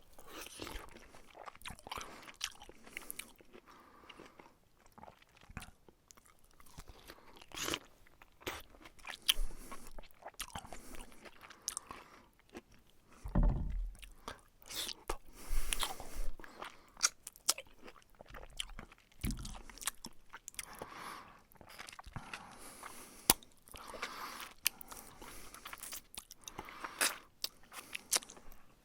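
A person biting and chewing crunchy food close to the microphone, with irregular crackly crunches throughout. Two dull low thuds come about halfway through and again a few seconds later.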